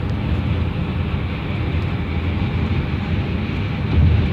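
Steady road and tyre noise inside a car driving on a highway, swelling briefly about four seconds in.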